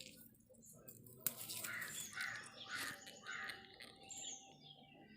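A bird calling: a run of about four harsh, repeated calls in quick succession in the middle, preceded by a sharp click.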